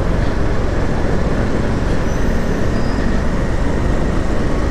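Steady noise of a moving road vehicle: engine and road rumble, heavy at the low end and unchanging throughout.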